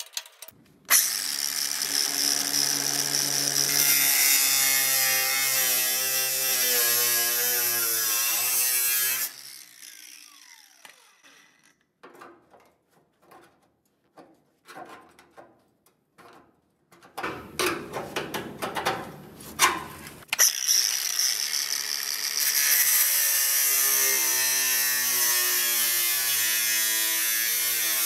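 Angle grinder with a thin cut-off wheel cutting through the rusty sheet steel of a VW Beetle's door hinge pillar, in two long runs of steady high-pitched whine that wavers as the wheel bites. About nine seconds in, the motor winds down. Light clicks and a few seconds of rougher noise follow, then the grinder starts again and cuts on.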